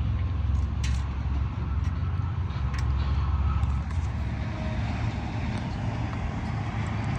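Steady low rumble of highway traffic, with a couple of faint clicks about one and three seconds in.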